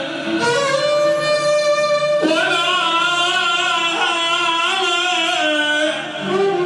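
Mournful Iraqi song: long, drawn-out melodic lines with a wavering vibrato over instrumental backing, the pitch stepping up about two seconds in.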